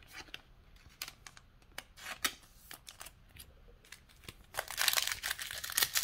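Pokémon trading cards and a foil booster pack being handled: scattered light clicks and slides of cards, then, about four and a half seconds in, a louder steady crinkling of the foil pack wrapper.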